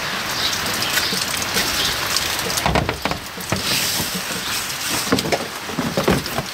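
Steady rain hiss, with scattered rustling and knocking of cardboard and cans being rummaged through in a wheelie recycling bin, loudest about three seconds in and again near the end.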